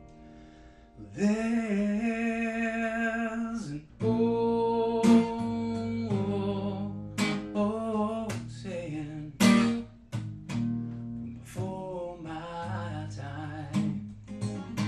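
Acoustic guitar strummed with a man singing over it, holding long notes after a quiet first second.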